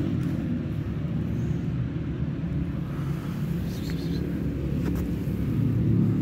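A low, steady rumble, with a couple of faint clicks about four and five seconds in.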